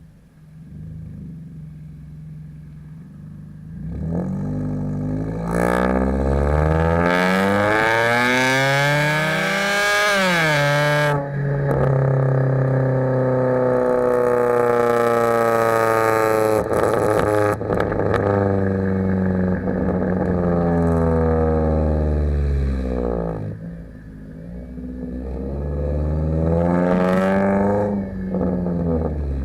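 2011 Kia Forte EX's engine and exhaust revving and accelerating. The note climbs for several seconds, drops abruptly about eleven seconds in, then winds down slowly and holds steady. Near the end it climbs and falls again.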